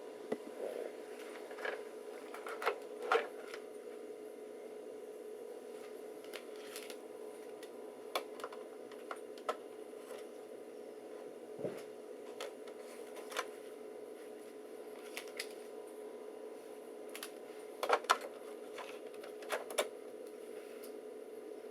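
Scattered sharp clicks and light clatter from handling a vintage Compaq laptop and its keys, loudest in a short cluster near the end, over a steady hum.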